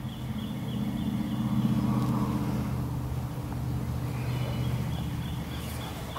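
Steady low engine drone, a little louder about two seconds in, with a faint thin high tone over it.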